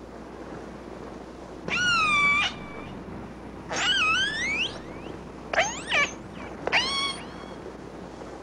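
Hydrophone recording of a captured killer whale's distress cries: four separate squealing calls, each under a second, that swoop up and down in pitch, over a steady hiss.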